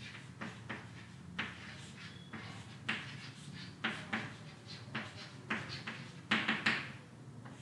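Chalk writing on a blackboard: a run of short, sharp taps and scratches as letters are chalked, a few strokes a second, irregularly spaced, the loudest strokes near the end.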